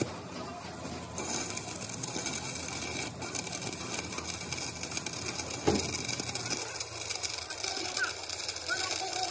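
Stick-welding arc crackling and sizzling as a rod electrode is run along the steel edge of an excavator bucket. The arc strikes about a second in and then burns steadily.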